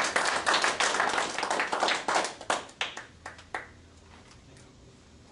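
A small audience applauding: a short round of clapping that thins to a few last claps and stops about three and a half seconds in.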